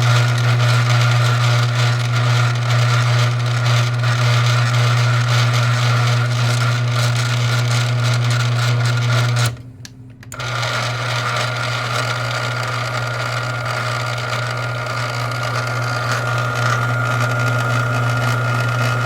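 An electric machine motor running steadily on test with a repaired logic board. It stops for under a second about halfway through, then runs again.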